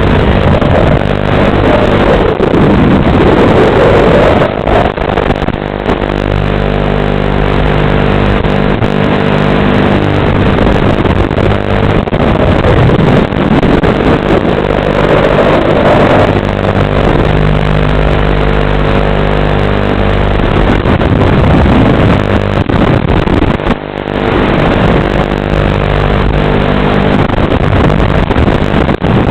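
A 6-inch FPV quadcopter's brushless motors and propellers whine loudly and continuously. Their pitch sweeps up and down several times with the throttle.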